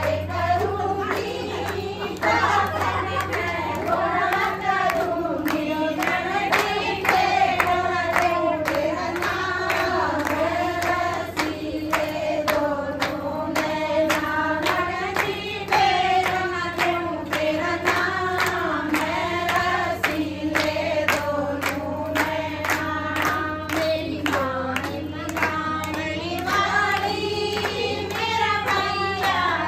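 A group of women singing a traditional folk song (geet) together in chorus, with steady rhythmic hand-clapping keeping time.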